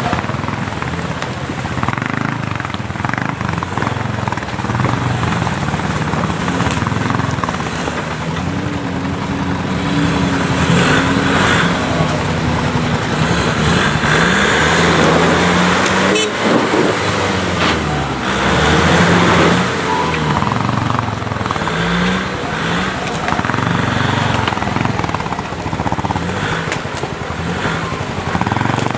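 Off-road 4x4 engine running under load, its note rising and falling as the throttle is worked, over constant driving noise.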